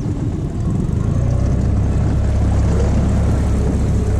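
Tohatsu 15 hp outboard motor running steadily as the inflatable boat moves under way; it gets louder about a second in.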